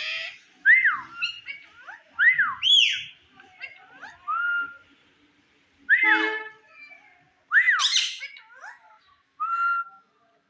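Indian ringneck parakeet calling: a run of loud whistles that each rise and then fall in pitch, a few short level whistles, and some harsh squawks.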